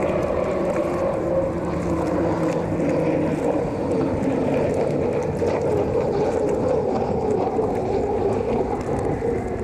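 Unlimited racing hydroplane engine running flat out at speed across the water: a steady drone that wavers in pitch.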